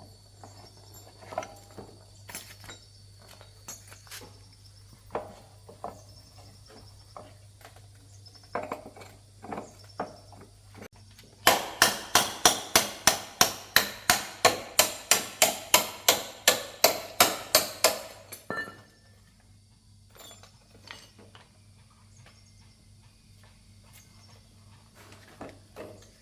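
Hammer blows in a quick, even run of about twenty strikes, roughly three a second, starting about eleven seconds in. Before and after the run come scattered lighter taps and knocks of tools being handled.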